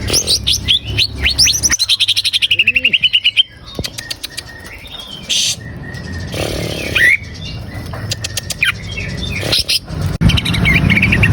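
Cucak ijo (greater green leafbird) singing. It opens with a quick run of sweeping whistled notes that speeds up into a rapid trill, follows with a few scattered calls, and starts another trill near the end.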